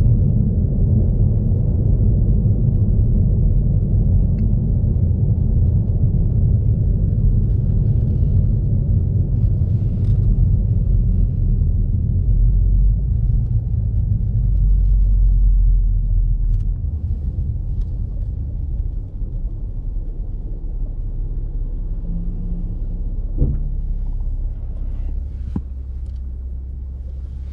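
Toyota GR Supra driving: a steady low rumble from the engine and road, heavier for the first half and easing off after about sixteen seconds. There is a sharp click about twenty-three seconds in.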